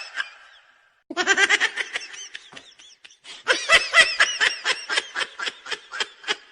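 A person laughing hard in rapid pulsed bursts: a short burst about a second in, then a longer run of laughter from about three seconds in.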